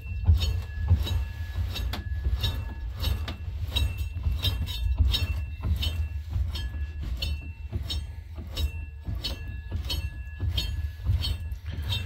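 Roller drive chains of a 1976 Attex 6x6 rattling and clicking over their sprockets as the drivetrain is turned by hand: a quick, irregular run of metallic clicks and clinks.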